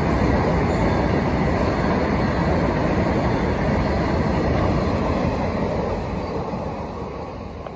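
Goods train of tank wagons running past on the rails: a steady rumble and clatter of wheels that fades over the last two seconds.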